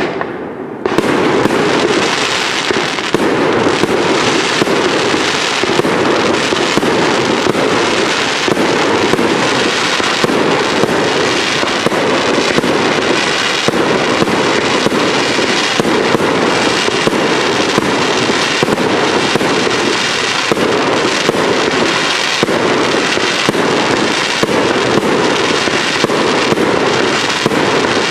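Fireworks display: a dense, unbroken run of rapid bangs and crackling pops, picking up after a short lull about a second in.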